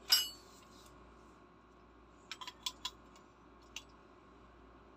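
Metal on metal clinking as a steel spanner and the brass and aluminium fittings of an air filter-regulator are handled: one ringing clink at the start, then a quick run of four or five sharp clicks about two and a half seconds in and a single click near four seconds.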